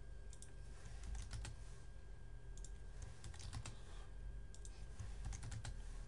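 Irregular clicking of a computer keyboard and mouse, short taps coming about two or three a second, over a low steady hum.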